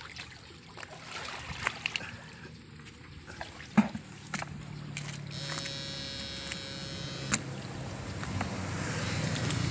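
Electric buzz of a homemade battery-powered electrofishing shocker, setting in about four seconds in and getting louder toward the end, with water splashing as the probe is swept through the canal.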